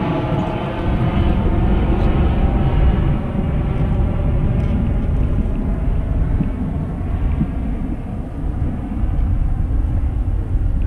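A steady engine drone that fades away over the first few seconds, under a loud low rumble.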